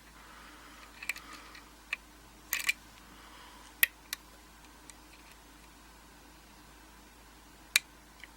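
Hook pick and tension wrench working the pins of a Russwin pin-tumbler rim cylinder, with scattered sharp metallic clicks, some single and a quick cluster, spread irregularly over a faint steady background hum.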